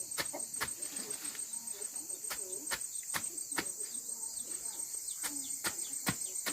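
Steady high-pitched insect chirring throughout, with irregular sharp clicks and faint short chirps.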